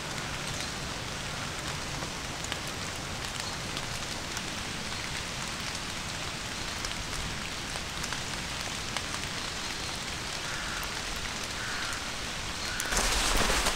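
Steady rain falling: an even hiss with scattered drop ticks. About thirteen seconds in, the sound turns louder and harsher, with a low rumble underneath.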